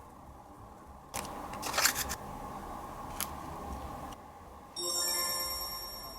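A rustling, crackling noise with a few sharp clicks while decoration is added to a slime, then a bright chime sound effect that rings out suddenly near the end and fades.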